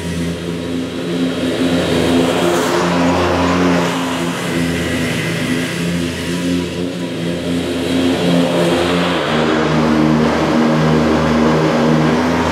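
Scag Cheetah zero-turn riding mower running steadily at mowing speed, its engine and cutting deck blades working through the grass. The engine note drops a little about nine seconds in.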